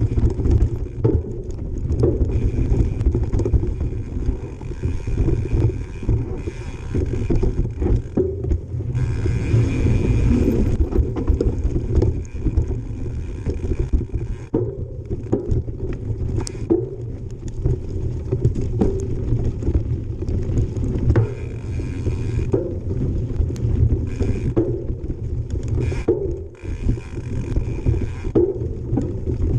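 Mountain bike descending a dirt bike-park trail: a constant rough rumble of tyres and wind on the microphone, with many sharp knocks and rattles from the bike over bumps and landings. In several stretches a higher, steady buzz comes in, the rear hub's freewheel ratcheting while the rider coasts.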